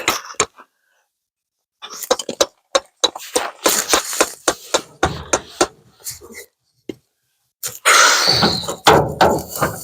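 Hammer blows knocking at a dented truck fender to straighten it: a run of irregular sharp knocks and taps, then a denser, louder stretch of clatter near the end.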